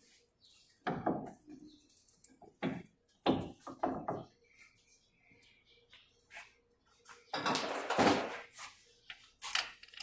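Irregular metal clunks and scrapes as a new front wheel hub-and-bearing assembly is pushed and turned by hand into the steering knuckle. There are a handful of sharp knocks in the first four seconds and a longer scraping rattle about seven seconds in.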